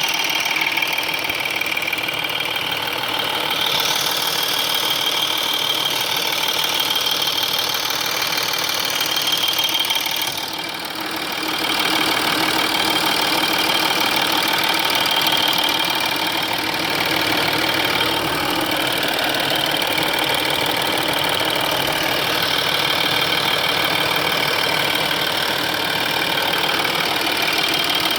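Audi 3.0 TDI V6 diesel (BKN) running warm, with a metallic ticking over the steady engine sound. The owner traces the ticking to the rear of the engine where the timing chain tensioners are and is unsure whether it is normal.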